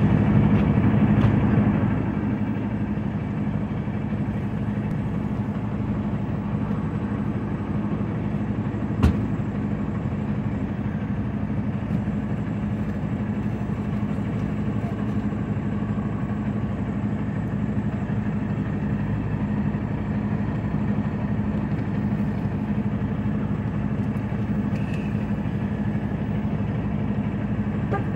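Truck engine idling steadily, a little louder for the first couple of seconds, with a single sharp click about nine seconds in.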